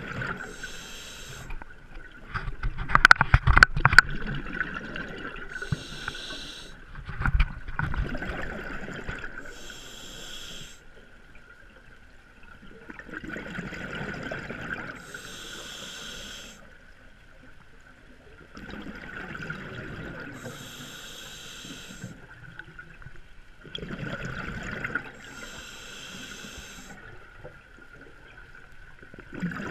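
Scuba regulator breathing heard underwater through a camera housing. Each breath is a short hiss on the inhale followed by a longer burble of exhaled bubbles, repeating about every five seconds. The loudest bubbling comes a few seconds in, and a faint steady whine runs underneath.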